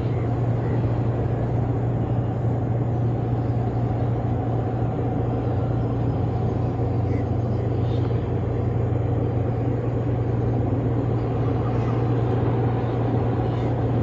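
A steady low engine drone, holding one deep pitch with no revving or change in level.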